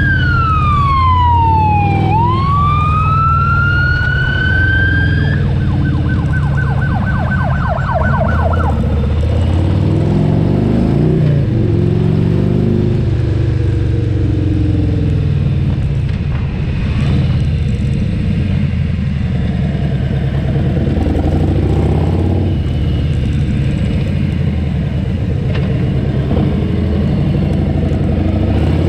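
Emergency vehicle siren wailing: a falling then rising sweep, then a fast yelp for about three seconds before it stops. Under it, and for the rest of the time, runs the steady drone of a motorcycle engine with wind rush, its pitch rising and falling a few times about a third of the way through.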